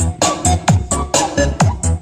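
Electronic dance music played loud through a Philips FXD18 mini hi-fi system, with a heavy kick drum whose boom falls in pitch, about two beats a second.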